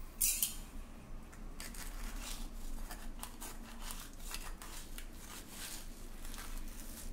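A metal spoon scraping in short repeated strokes against a stainless steel plate as it pries set pieces of coconut barfi loose. A sharp metal clink comes just after the start.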